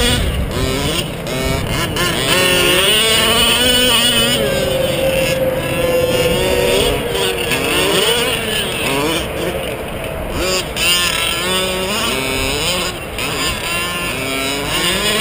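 Small two-stroke gas engines of 1/5-scale RC cars revving up and dropping back over and over as they race. Several engine notes overlap and rise and fall independently.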